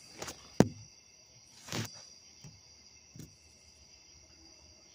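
Crickets and other insects chirping in a steady high-pitched chorus. A few knocks and clicks break in, the loudest a sharp click about half a second in and a rougher knock near two seconds.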